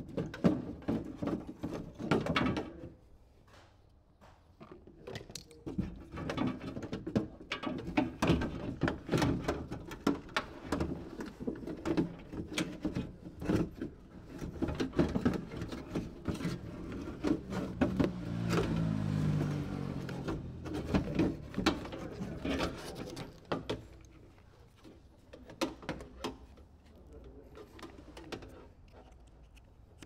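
Renault Megane power door lock assembly and its cables handled and worked out of the metal door shell: irregular plastic clicks, knocks and rattles, with a longer stretch of rubbing and scraping around the middle.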